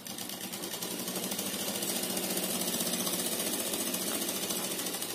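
Sewing machine running steadily, its needle stitching fabric in a fast, even chatter. It grows louder over the first two seconds and stops near the end.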